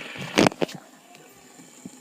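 A few sharp clicks and knocks about half a second in, from a fidget spinner being handled and set spinning on a table.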